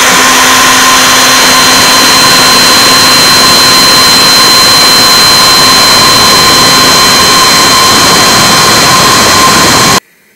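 CNC router spindle running steadily with a high whine as a 1/32-inch flat end mill carves a maple block; the sound cuts off near the end.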